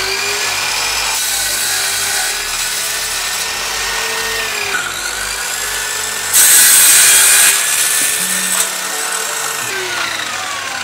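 INGCO corded circular saw running on a sliding rail guide and cutting through plywood. The motor's whine sags and recovers as the blade takes the load, it is loudest for about a second around six to seven seconds in, and near the end the whine falls away as the motor winds down.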